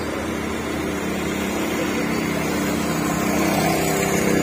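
Small boat's motor running steadily as the boat cruises along a canal, getting slightly louder toward the end.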